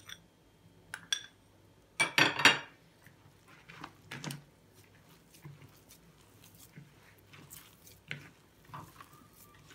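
A spoon scraping and tapping a plastic cup, then a loud clatter of cup and spoon about two seconds in. Softer, scattered rustling follows as hands knead crumbled cocoa cake with milk and melted chocolate in a plastic bowl.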